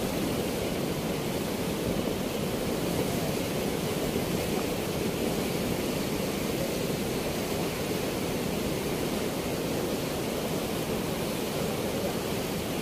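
Steady rush of river water pouring through a weir, an even roar with no pauses.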